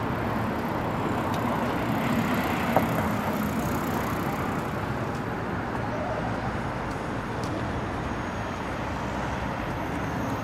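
Steady city road traffic noise from cars passing on the street, with a single short click a little under three seconds in.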